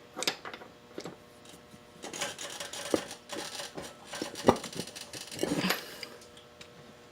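Metal hand tools and parts clinking and rattling, with several sharp clanks and two stretches of quicker clattering.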